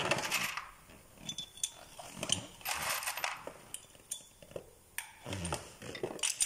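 Irregular metallic clinks and clatters of scooter folding-mechanism parts, nuts and hand tools being handled on a workbench.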